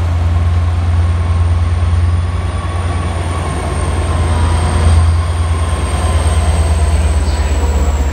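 Long Island Rail Road bilevel commuter train rolling along a station platform: a steady loud low rumble and rolling noise with a faint high whine that slowly falls in pitch.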